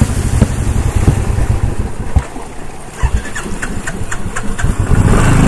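Royal Enfield Bullet's single-cylinder engine running with a low beat that falters and nearly dies about two seconds in, with uneven clicks, then catches again about five seconds in and settles to a steady idle: the bike stalling and being restarted.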